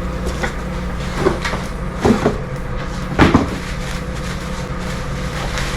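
A few knocks and clunks, the loudest a little past the middle, as the car's shifter parts are handled and taken out, over a steady low hum.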